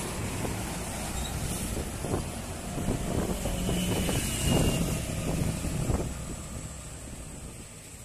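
Road traffic: a tour bus passing close by with its engine and tyre noise, followed by other vehicles approaching and going past; the sound swells a few times in the middle and fades toward the end.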